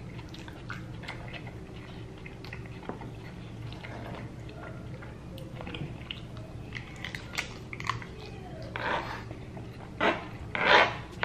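Someone chewing crunchy tacos with their mouth close to the microphone. Small wet chewing clicks run throughout, and a few louder crunching bites come near the end.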